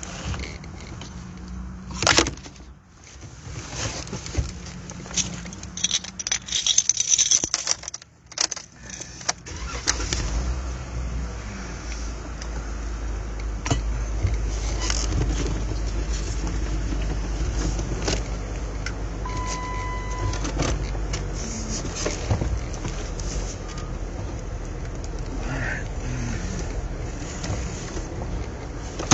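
Rattling and handling noises with keys jangling, then a car running with a steady low rumble from about ten seconds in.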